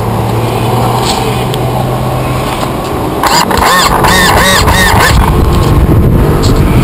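Small engine of a radio-controlled model boat running, with its pitch warbling up and down in a burst of revving about halfway through.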